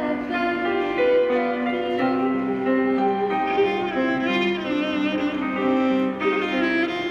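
Electronic keyboard playing an instrumental interlude between sung verses of a Christian hymn, a string-like melody over held chords, with no singing.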